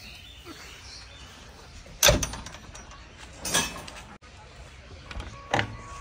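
Metal clunks and knocks from a JCB 3DX backhoe loader's cab as the operator climbs in and handles the cab door: three sharp knocks, the loudest about two seconds in, with the engine not running.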